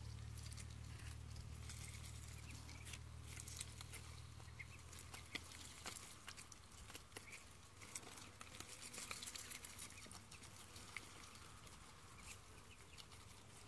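Faint, scattered clicking and rustling of Muscovy ducks and a duckling pecking and nibbling at greens, with a few faint high chirps. A low steady hum fades out about halfway through.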